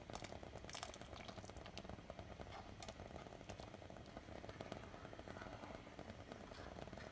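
Milk thickening into rabdi boiling in a steel pot: faint bubbling with scattered sharp pops, most of them in the first two seconds.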